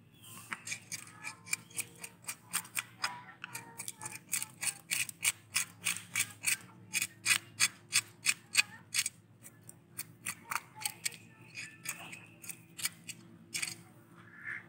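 Scales being scraped off a small whole fish with quick, sharp strokes, about three a second, loudest in the middle and thinning out briefly around ten seconds in.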